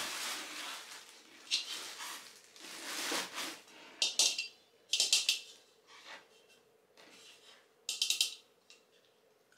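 Clear plastic wrapping rustling and crinkling in short bursts while nonstick pans and lids are pulled out of their bags and handled.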